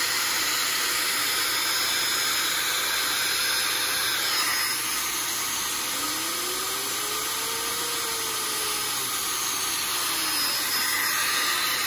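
Rechargeable electric air duster running, giving a steady rush of blown air as it blasts dust out of a graphics card's cooler. A faint tone rises and then falls in pitch around the middle.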